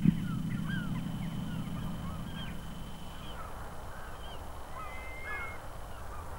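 A flock of gulls calling, many short high calls rising and falling and overlapping one another throughout.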